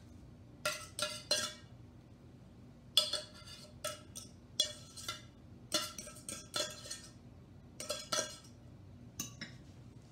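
A metal utensil knocking and scraping tuna out of small tin cans into a glass dish: irregular sharp metallic clinks, often in pairs, each ringing briefly.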